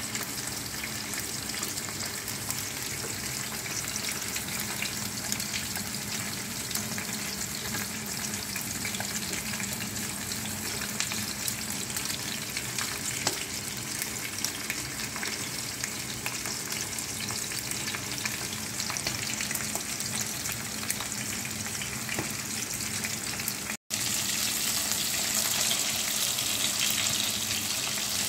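Whole bisugo (threadfin bream) frying in hot oil in a pan: a steady crackling sizzle. It cuts out for an instant about three-quarters of the way through, then comes back louder and brighter.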